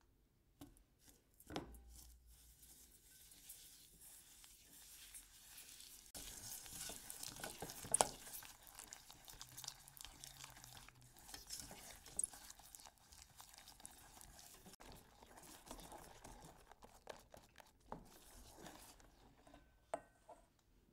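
Wire whisk beating egg yolks and sugar in a stainless steel saucepan: a faint, continuous scraping and swishing, with a few sharp clinks of the wires against the pan.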